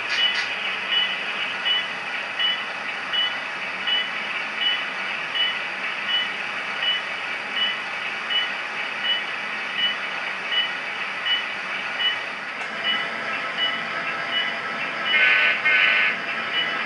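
HO scale model train's sound, with a bell ringing steadily a few times a second over the running of the moving cars, and two short horn blasts near the end.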